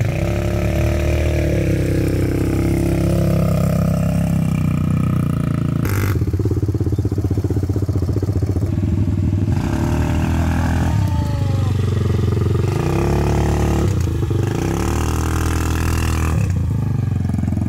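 Quad bike engines running, heard from the seat of one of the quads, the engine note rising and falling again and again as the throttle is opened and eased off.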